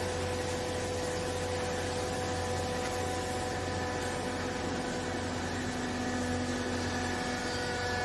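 Hydraulic power unit of a vertical baler running steadily: an electric motor and pump giving a constant hum and whine. A lower tone joins about four seconds in and drops away shortly before the end.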